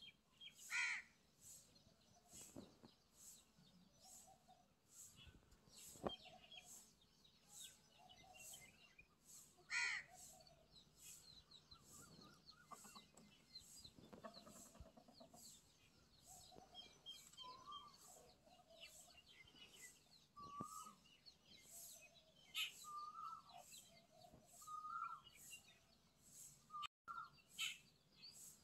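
Faint chirping and calling of small birds. A short call repeats every second or two in the second half, and two louder brief chirps come near the start and about ten seconds in.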